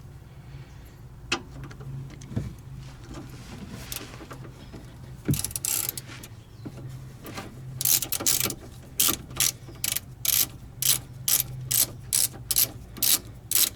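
Ratchet wrench clicking as a shock absorber mounting bolt is worked: a few scattered clicks, then from about eight seconds in a steady run of about three clicks a second. A low steady hum sits underneath.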